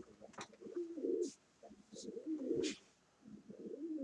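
Pigeon cooing in repeated warbling phrases, about four in a row, with a few sharp clicks between them.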